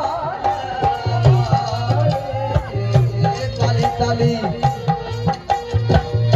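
Rajasthani folk music: a hand drum beating a steady, driving rhythm with a melody running over it.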